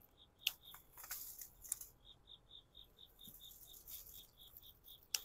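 A few soft clicks and rustles in the first two seconds. From about two seconds in, faint insect chirping runs as even high pulses, about four a second.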